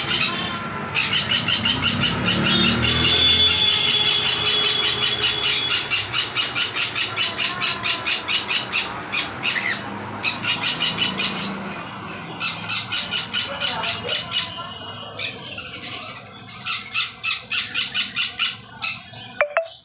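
Caged pet birds calling: shrill notes repeated rapidly, about five a second, in runs of several seconds with short breaks.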